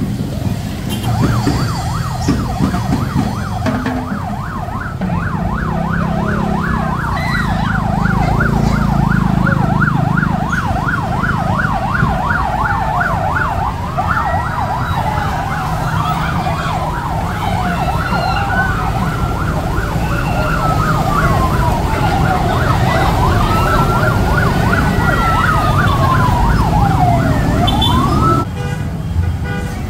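Electronic vehicle sirens: a rapid yelp warbling up and down, joined about halfway through by a slower rising and falling wail. Both cut off suddenly shortly before the end, over a low rumble.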